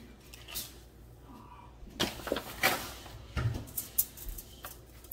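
Kitchen handling noises on a counter: quiet at first, then a run of sharp knocks and crinkly rustles starting about two seconds in.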